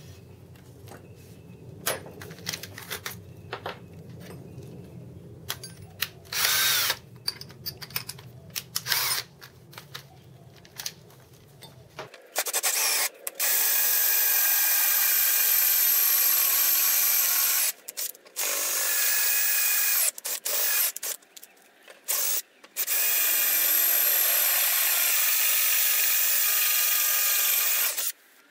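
Electric drill with a 10 mm bit opening up holes in metal motor rails to clearance size. At first there are scattered clicks and a few short bursts of the drill. From about halfway through it runs loud and long, stopping briefly a few times between holes.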